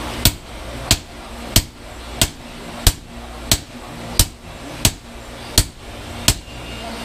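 Two sledgehammers striking in turn on a bamboo-handled chisel held against a heated billet of 5160 spring steel on an artillery-shell anvil, scoring the billet down the middle. Ten sharp strikes in an even rhythm, about one and a half a second.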